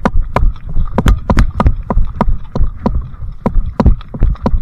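Footsteps of a player on the move with gear knocking: sharp, uneven thuds about three to four a second, over low wind rumble.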